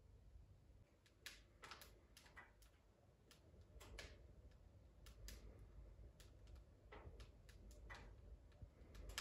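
Wood fire burning in a closed wood stove: faint, irregular crackles and pops, starting about a second in.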